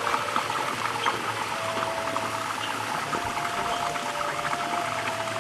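Steady hissing background noise with a low hum and a few faint held tones. No single clear source stands out.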